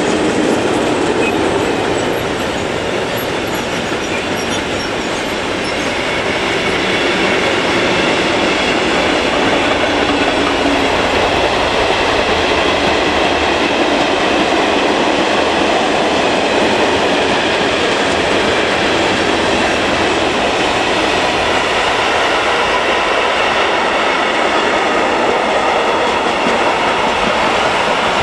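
Long mixed freight train rolling past at close range: a steady, loud rumble of steel wheels on rail with clickety-clack over the rail joints as the boxcars, covered coil wagons and flat wagons go by.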